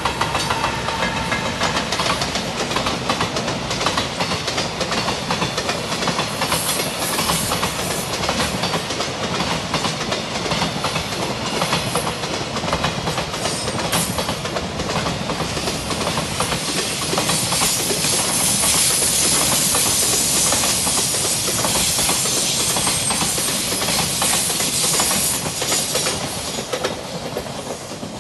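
Container freight train behind an EF210 electric locomotive running past close by, its wagon wheels clattering rapidly over the rail joints. The clatter swells louder in the second half, then fades as the train draws away near the end.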